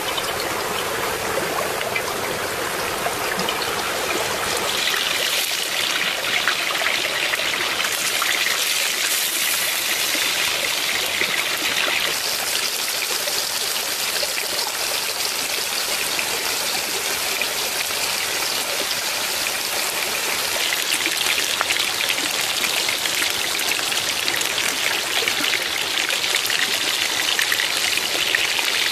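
Shallow stream running over rocks, a steady trickling rush that turns brighter and hissier about five seconds in.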